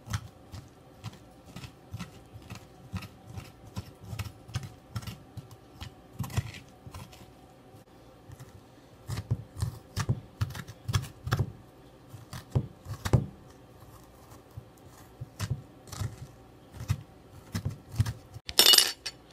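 A metal spoon scraping seeds and stringy pulp out of a halved raw butternut squash: quick, irregular scrapes and taps, several a second. There is a louder, sharper scrape near the end.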